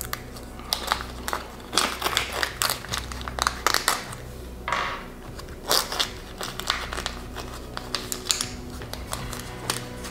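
A plastic parts bag crinkling while small metal bolts click against each other as they are picked out by hand.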